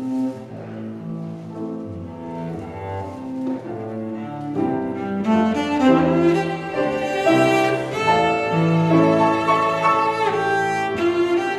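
Cello and grand piano playing together: long bowed cello notes over piano accompaniment, swelling louder about five seconds in.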